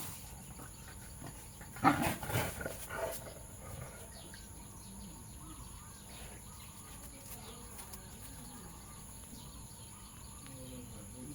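Insects chirring steadily in the background, with a short cluster of several loud, sharp sounds about two seconds in.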